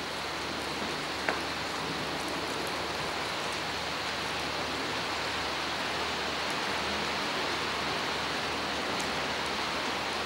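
Steady rain, an even hiss with no break, with one short click a little over a second in.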